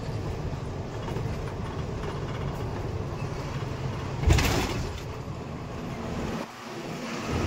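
Steady low rumble of a truck running, with a sudden brief loud noise about four seconds in.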